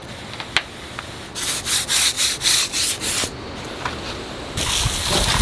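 Stiff hand scrub brush scrubbing a stone-faced wall, about seven quick strokes at roughly three a second, followed near the end by the steady hiss of a garden hose spraying water.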